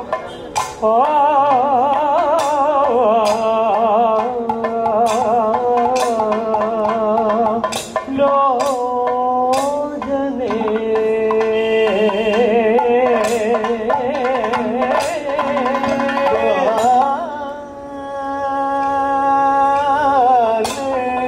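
Kathakali music: a sung vocal line with heavy wavering ornaments over a steady low tone, with scattered sharp drum strokes from the chenda and maddalam.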